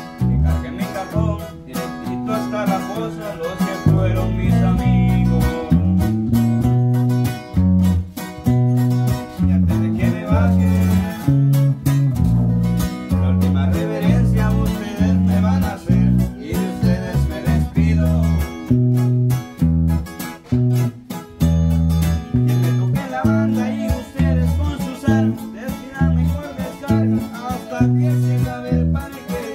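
Instrumental passage of a song played on guitars: strummed and plucked guitar over a bass line stepping between notes on the beat.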